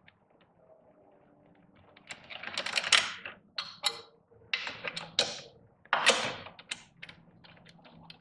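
Metal hand tools and bolts clicking and clattering in a string of short, irregular bursts, starting about two seconds in, as a motorcycle rearset is unbolted with a hex driver and T-handle.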